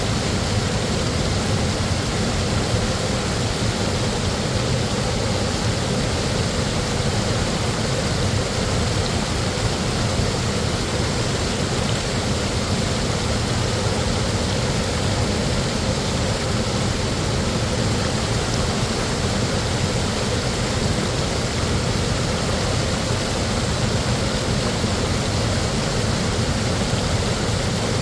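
Koosah Falls, a large waterfall, rushing steadily: a dense, unbroken roar of falling water, heaviest in the low end.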